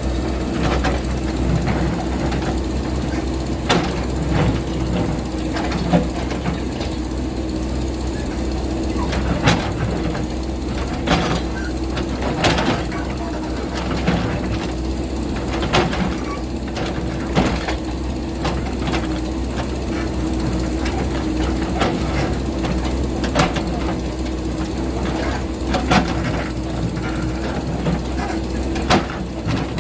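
JCB backhoe loader's diesel engine running steadily under load, with sharp knocks and scrapes every one to three seconds as the bucket digs into rocky ground.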